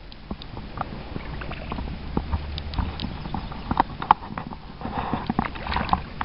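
Water splashing and sloshing, heard as a string of irregular small knocks and clicks, as a large hooked trout thrashes at the surface close by.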